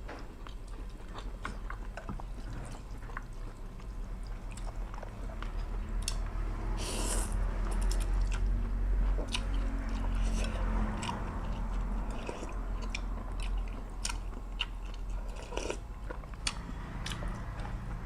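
A person chewing and biting food close to the microphone, with many scattered small clicks over a steady low hum.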